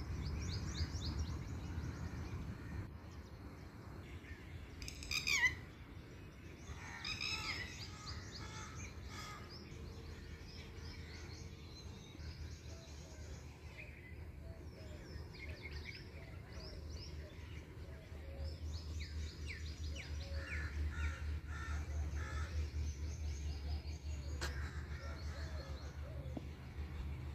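Several birds chirping and calling from the trees in a mix of short high chirps and repeated call series, with one loud falling call about five seconds in. A low rumble runs underneath and grows stronger in the second half.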